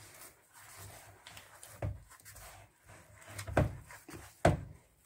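Hand kneading soft yeast dough in a plastic bowl: quiet squishing and rubbing, with three dull thumps as the dough is pressed down into the bowl, the loudest two in the second half.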